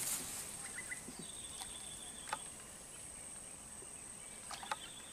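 Insects buzzing with a steady high-pitched drone, with a few faint clicks scattered through.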